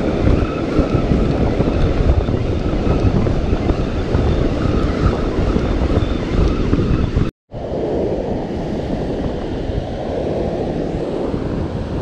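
Wind buffeting the microphone over the steady wash of surf, with the faint whir of a spinning reel being cranked. The sound breaks off to silence for a split second a little past halfway.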